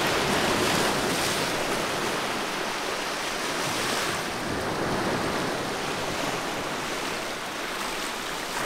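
Small sea waves breaking and washing onto a sandy shore: a steady rush of surf.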